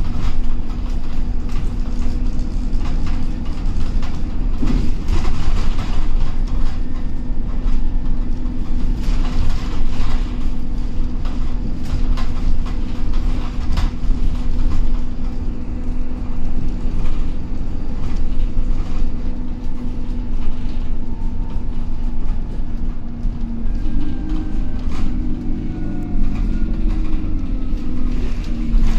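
Alexander Dennis Enviro400 double-decker bus on a Dennis Trident chassis under way, heard inside on the upper deck: a steady diesel engine drone with road rumble and frequent rattles and knocks from the bodywork and fittings. Near the end the engine note wavers and rises as the bus changes speed.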